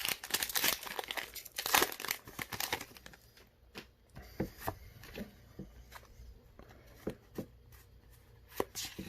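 Foil trading-card booster pack being torn open and crinkled for the first few seconds, followed by scattered light clicks and taps.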